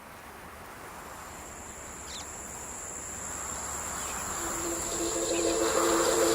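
Insect buzz on one steady high note with a few short bird chirps, swelling steadily in loudness, joined about four seconds in by a sustained music chord fading up.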